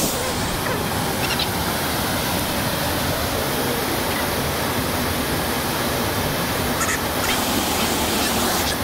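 Steady rushing roar of a waterfall pouring into a rocky gorge, with a few faint high chirps about a second in and near the end.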